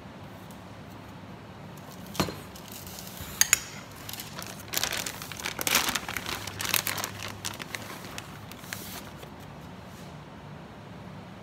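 Plastic bag of shredded cheese crinkling as it is handled and opened, for about four seconds in the middle, preceded by a sharp knock and then two quick sharp clicks.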